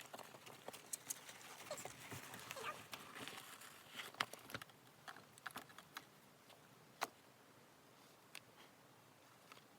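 Faint scattered clicks, knocks and rustling, busiest in the first half, with one sharp click about seven seconds in.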